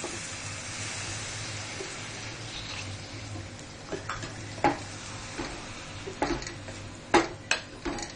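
Water poured into a metal pot of chicken curry masala for the first few seconds, then a spoon stirring the curry, scraping and knocking against the pot's sides, the sharpest knock about seven seconds in.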